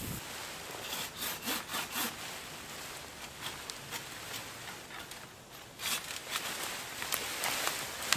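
A leafy green branch rasping and swishing as it is hauled over the woodland floor, in a quick run of strokes about a second in and a louder, denser stretch near the end.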